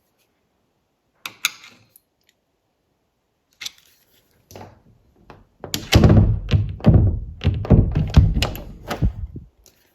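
A door knocking and rattling against its latch and strike plate, several sharp clicks followed by a run of many loud thunks: the fit of the latch in the strike is being checked for looseness.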